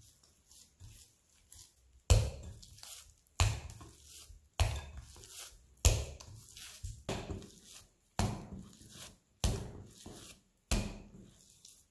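Bread dough being kneaded by hand in a glass bowl on a steel worktop: faint soft handling sounds at first, then from about two seconds in a dull thump roughly every second and a quarter as the dough is pushed down and folded, about eight in all.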